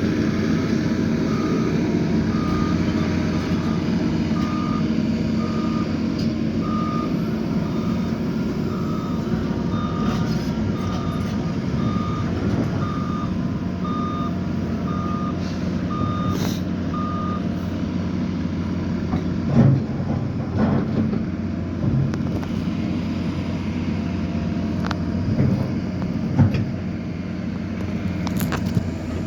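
Liebherr excavator's diesel engine running steadily while a reversing alarm beeps about once a second for some fifteen seconds, then stops. In the second half a few separate knocks and clunks stand out over the engine.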